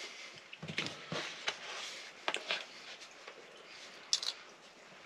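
Faint scattered clicks and short rustles of eating from a plate: a fork tapping and scraping against the plate, with a brief sharper clink about four seconds in.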